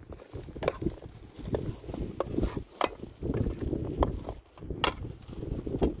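Metal spoon stirring a pot on an open wood fire, giving irregular sharp clinks and knocks, about a dozen, over a steady low rumble.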